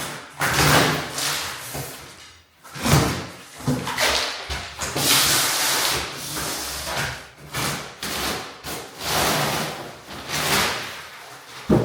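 A series of irregular knocks, scrapes and rustles, with several sharper thuds around three and eleven seconds in, over a faint low hum.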